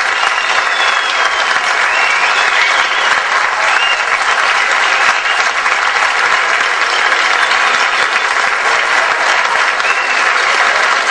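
Audience applauding steadily after a choral folk music performance.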